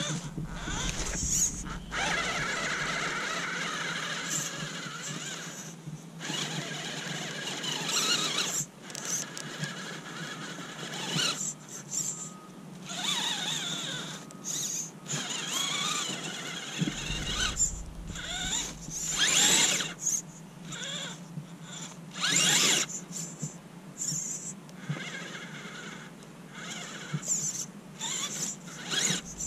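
A 1/18-scale Axial UTB18 Capra RC crawler running on a 3S battery, its electric motor and gears whining high in stretches that stop and start with the throttle as it climbs through snow.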